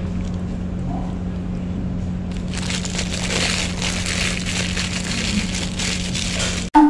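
Paper food wrapper crumpled and folded in the hands: loud crinkling that starts about two and a half seconds in and cuts off abruptly near the end, over a steady low hum.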